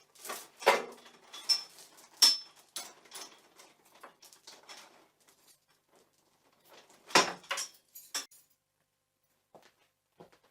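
Metal gate being handled: a run of metallic clanks and rattles, then a louder clank about seven seconds in, followed by a few faint clicks.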